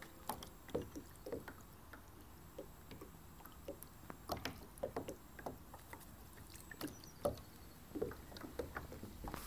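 Faint, irregular small splashes, drips and light knocks of water against a plastic sit-on-top kayak's hull as it drifts, a few each second.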